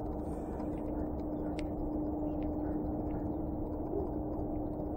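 Steady low background noise with a faint continuous hum and a few faint ticks.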